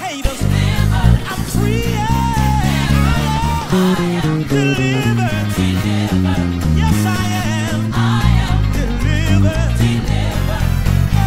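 Electric bass guitar played fingerstyle, a busy line of quick low notes, over a song with a singing voice on top.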